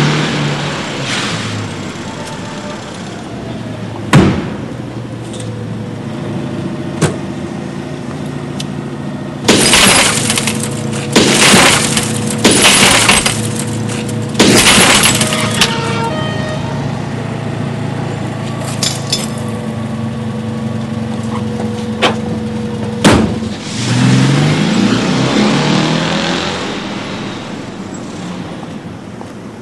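A car being smashed up: a couple of single blows, then a run of loud crashes with shattering glass over several seconds. A car passes at the start and again near the end.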